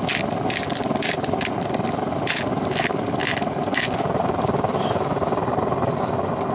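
Seasoning granules shaken from a bottle onto steak: about ten quick, crisp shakes that stop about four seconds in. Under them runs the steady hum of a pellet stove.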